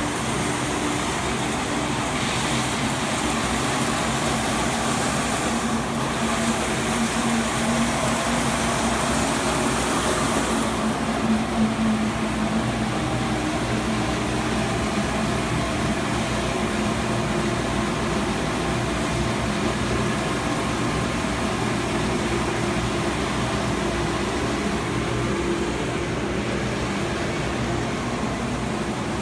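DMC Technosand 53-inch wide belt sander running steadily with its calibration head, segmented platen head, vacuum pump and feed conveyor all on. A louder hiss swells over several seconds in the first third, as a board passes through the sanding heads.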